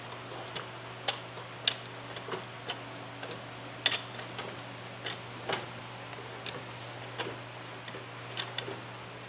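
Irregular sharp clicks and knocks, about one or two a second, from a floor jack being worked to raise the front of a car, over a steady low hum.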